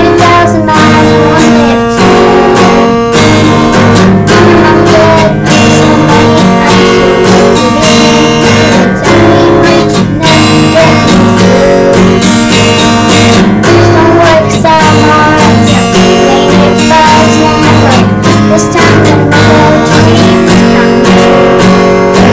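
Steel-string acoustic guitar strummed in a steady rhythm, playing an instrumental piece.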